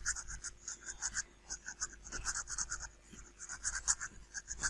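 Faint scratching and light clicking as small 3D-printed plastic model parts are handled, in short irregular strokes over a faint steady hum.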